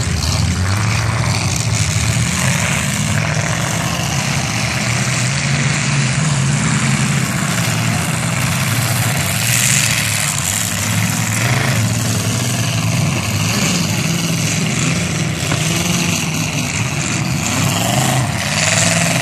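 Several demolition derby cars' engines running and revving together, loud and continuous, their pitch rising and falling as the cars drive around the arena.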